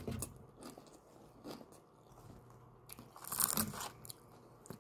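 Mouth crunching and chewing a bite of raw salad leaves, with a loud burst of crunching about three seconds in.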